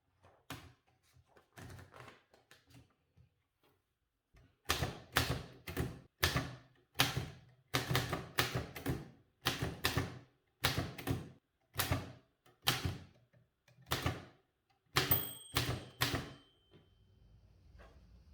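An old manual typewriter being typed slowly, its typebars striking the platen one key at a time. A few faint strikes come first; from about four seconds in the strikes are loud and uneven, sometimes in quick pairs. A short ring sounds near the end.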